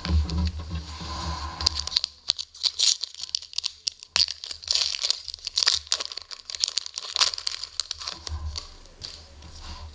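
Shiny plastic-foil wrapper of an SPX hockey card pack being torn open and crinkled by hand: a run of sharp crackling tears and rustles. Soft thumps at the start as cards are set down on the table.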